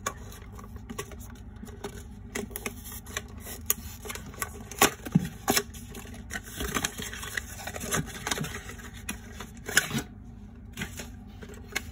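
Small paperboard toy box being opened by hand: flaps scraping and rustling, the inner white box slid out, with scattered sharp clicks and taps, the loudest around the middle and again near the end.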